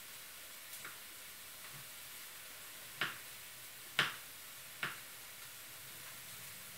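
Knife chopping garlic on a plastic cutting board: a few sharp, irregular taps of the blade on the board, two faint ones under a second in, then three louder ones roughly a second apart.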